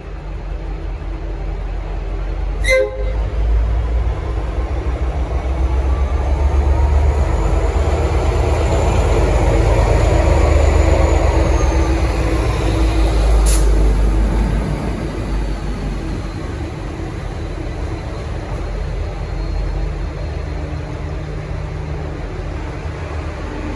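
N-class diesel-electric locomotive moving slowly along the platform, its EMD diesel engine rumbling louder as it draws near and easing off after about fourteen seconds. A faint high whine rises and falls over the loudest stretch. There is a brief sharp sound about three seconds in and a sharp click about thirteen seconds in.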